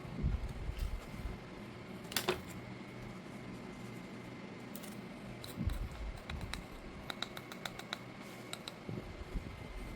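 Snack packaging being handled and opened: soft thumps, a sharp crackle about two seconds in, and a quick run of light clicks and taps near the end.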